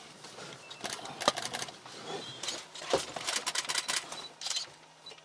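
Camera shutters firing in rapid bursts: several clusters of sharp clicks with short pauses between them.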